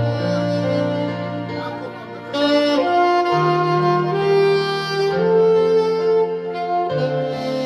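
Saxophone playing a slow melody of long held notes, with lower sustained accompanying notes underneath.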